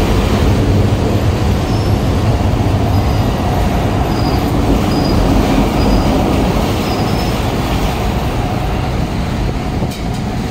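A light-rail train rumbling past on the LRT line overhead: a loud, steady rumble with faint, brief high wheel squeals, easing off a little near the end.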